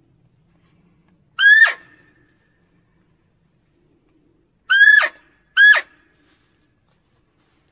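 Muntjac (barking deer) barking: three short, sharp barks, one about a second and a half in and two in quick succession near the end, each dropping steeply in pitch as it ends.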